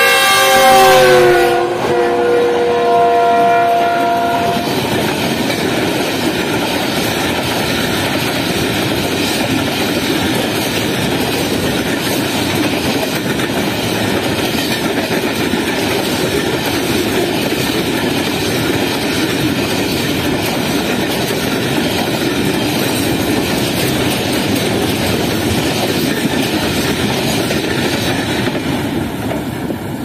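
Diesel freight locomotive sounding its multi-tone horn as it passes at speed, the chord dropping in pitch as it goes by and held for about four seconds. Then a long, steady rumble and clatter of freight wagons rolling past on the rails.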